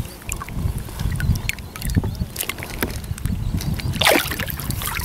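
Lake water lapping and dripping around a kayak, with a low rumble of wind on the microphone. About four seconds in there is a short splash as a rainbow trout is let go back into the water.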